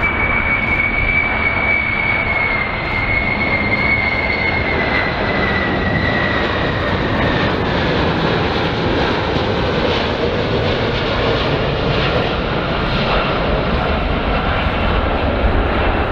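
Jet engines of a Boeing 747 on landing approach: a steady jet roar with a high whine that slowly falls in pitch over the first half, a fainter lower tone joining in the second half.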